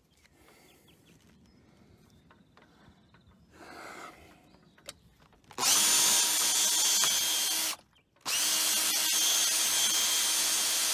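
Power drill drilling out a rivet in a boom end cap, run twice: a steady motor whine with the bit cutting, about two seconds then, after a short pause, about three seconds.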